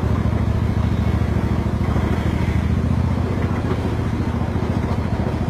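Mini train's engine running steadily under way, a low, even hum with a fast pulse.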